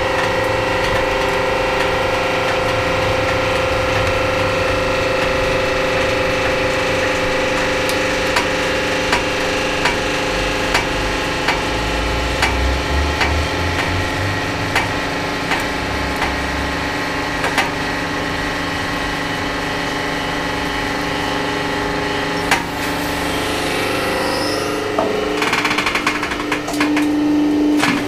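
Home-made hydraulic press's pump running steadily under load, with scattered sharp cracks and clicks as the motorcycle battery is squeezed. Near the end the pump's note changes and a fast rattle comes in.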